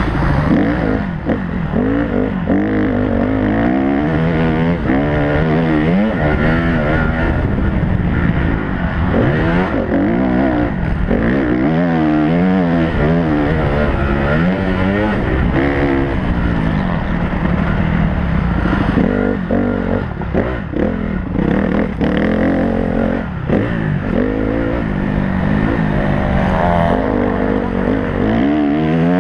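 Motocross bike engine heard close up from the rider's helmet, revving up and dropping back again and again as it is ridden hard round a dirt track, with gear changes and a few sharp knocks from the rough ground.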